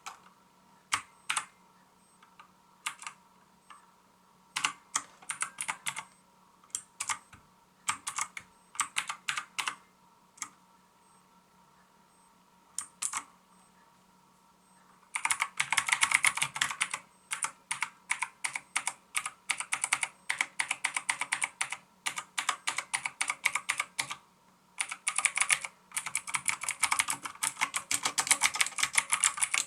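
MAXTILL TRON G100K mechanical keyboard with clicky blue switches being typed on. Single keystrokes and short bursts come at first, then fast, continuous typing from about halfway, broken by one brief pause.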